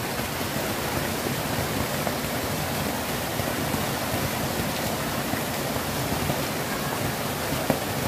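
Small waterfall spilling over a stone ledge and splashing into a shallow pool: a steady rushing splash, with one brief tick near the end.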